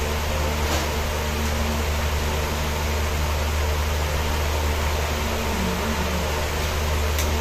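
A steady fan-like whir with a strong low hum, with faint clicks about a second in and again near the end.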